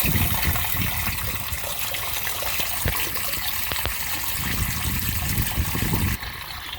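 Backed-up sewage water rushing and splashing as it drains through a freshly cleared main sewer line that is root-intruded and broken.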